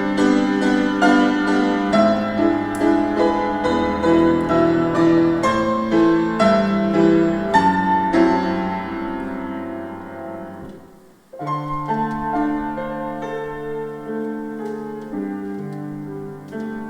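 Piano playing the introduction to a choir anthem: flowing chords under a melody that fade away about eleven seconds in, then the piano starts again with slower held chords.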